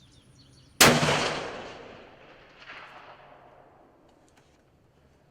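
A single rifle shot from a .338 Lapua Magnum rifle about a second in. The report echoes and fades over about two seconds, and a fainter echo comes back near the three-second mark.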